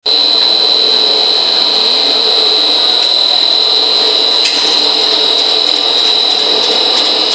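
A single-screw snack pellet extruder running with dough coming out of its die: steady machine noise under a constant high-pitched whine, with one brief click about four and a half seconds in.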